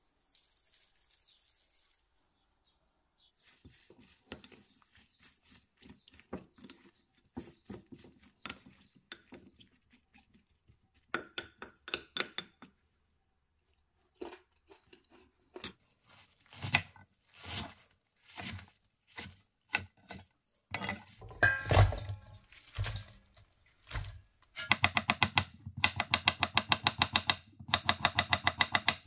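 Wooden spoon mixing chopped green onions and seasoning in a ceramic bowl, scattered light clicks and scrapes, then a few heavier thumps. In the last few seconds a kitchen knife julienne-slices sweet potato on a wooden cutting board, fast even taps, the loudest sound.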